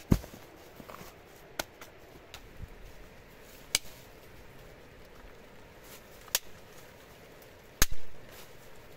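Stones being handled and set down, giving five sharp knocks a second or more apart. The loudest is near the end and rings on briefly.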